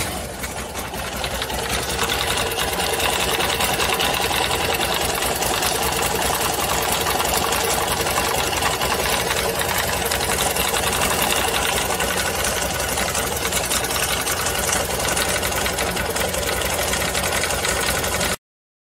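Corven Touring 250 motorcycle engine running steadily with a fast, even mechanical clatter; the engine has been rebuilt and is being run in. It cuts off suddenly near the end.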